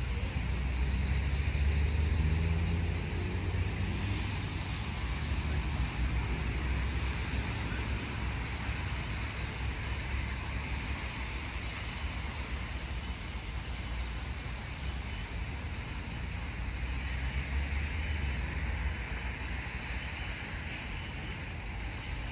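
Steady outdoor city background: a low, fluctuating rumble of distant traffic with a fainter hiss above it.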